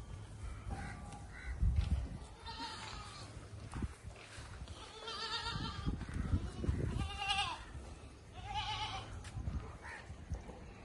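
Barbari goats bleating: about four wavering bleats, a few seconds apart. A low thump about two seconds in.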